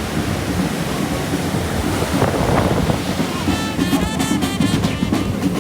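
Ocean waves washing onto the shore with wind buffeting the microphone, a steady rushing surf. About four seconds in there is a brief patch of high-pitched chirping sounds.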